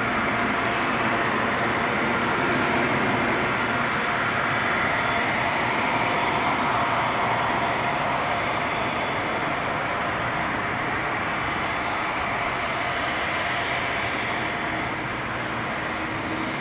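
Jet airliner engines running at taxi power: a steady rush with a thin whine, easing off slightly over the second half.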